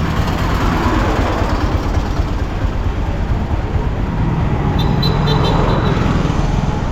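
Steady rumble of a moving car amid city traffic, with a brief run of high ticks about five seconds in.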